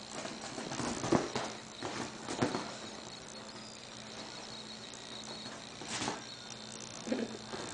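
Hooves of two young Nigerian Dwarf goat kids thumping and scrabbling on a leather sofa as they jump and play. There is an irregular run of soft knocks and patters, with the strongest about a second in, again after two seconds, and near the end.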